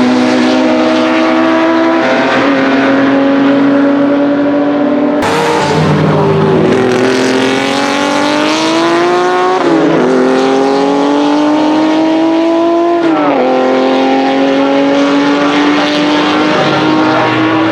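Porsche 906 Carrera 6's 2.0-litre flat-six racing engine at full throttle, its note climbing through the revs with two upshifts, about ten and thirteen seconds in, before settling to a steady note.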